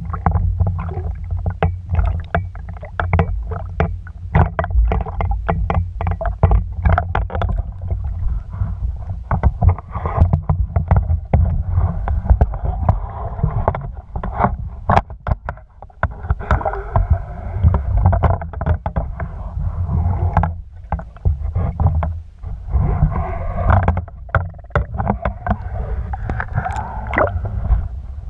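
Water sloshing and splashing around a half-submerged camera as a swimmer moves at the surface, with heavy low water noise and many sharp splashes throughout.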